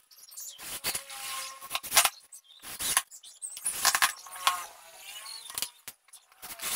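Cordless drill-driver running in several short bursts while driving screws into a wooden box, with clicks and clatter of screws and the tool being handled between runs.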